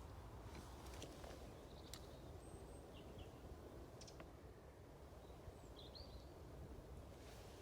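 Near silence outdoors: a low steady rumble of wind on the microphone, with a few faint short bird chirps and a couple of small clicks.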